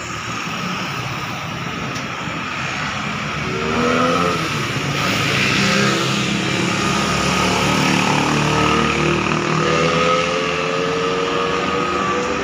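A motor engine droning, building up over the first few seconds and then holding steady, its pitch gliding slowly.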